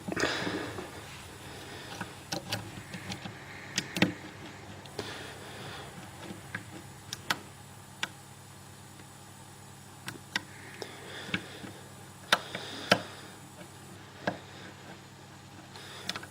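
Light, irregular metallic clicks and scrapes of a lock pick and tension wrench working inside the keyway of an old Lockwood deadlock clamped in a vise. The pins give no setting clicks: the lock is giving no feedback, and it shifts in the vise.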